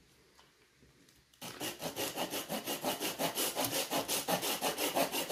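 Bahco Laplander folding saw cutting through a stick of wood, starting about a second and a half in with quick, even back-and-forth strokes, several a second.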